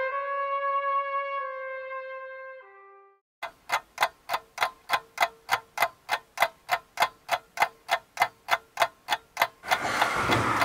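A held brass-like note that drops through a few falling notes and stops. After a brief gap, a clock-like tick about four times a second for some six seconds, then broad room noise sets in near the end.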